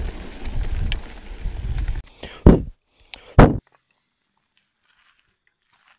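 Low steady rumble of a 2019 Trek X-Caliber 9 mountain bike rolling over a dirt road, heard through the bike-mounted camera. About two seconds in it cuts off. Two loud thumps follow about a second apart, then near silence.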